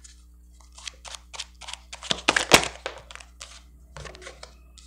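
Tarot cards handled: shuffled and flicked through by hand, giving a run of quick papery snaps and flicks, the loudest about halfway through.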